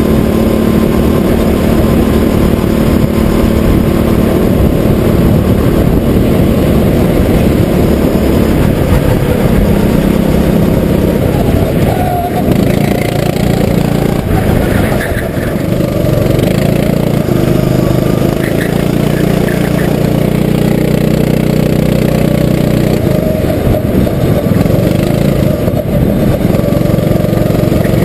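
Kart engine running hard, heard right on board the kart, its pitch falling and rising as the kart slows for corners and accelerates out again. There is a clear drop about twelve seconds in, going into a tight hairpin.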